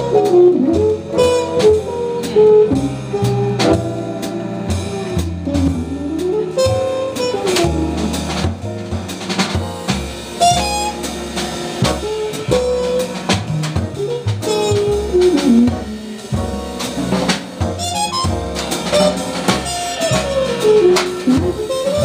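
Live small-group jazz: a trumpet solos in fast, winding swing lines over a rhythm section of drum kit and a bass stepping through low notes.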